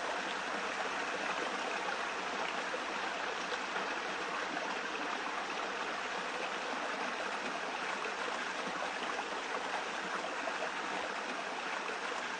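Steady, even rush of running water, with no distinct calls or other events.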